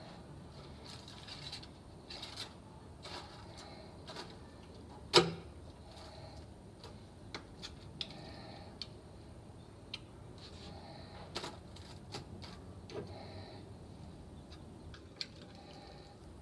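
Scattered clicks and knocks of kitchen work, with one sharp, much louder knock about five seconds in.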